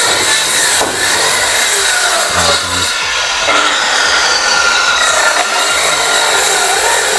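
Handheld electric circular saw cutting lengthwise through a thick wooden plank. The motor whines steadily under load, its pitch dipping and recovering now and then as the blade bites.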